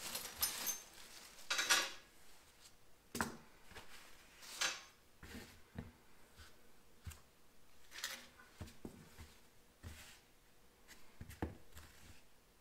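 Handling of hand tools and steel engine valves on a cloth-covered workbench: scattered light metallic clinks and taps, with soft rustling between them.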